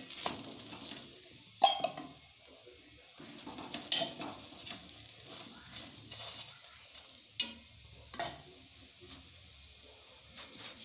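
A steel spatula scraping and clinking against a flat tawa as a stuffed paratha is pressed and turned while it roasts in oil, with a handful of sharp metal clicks a second or two apart. Faint sizzling of oil in between.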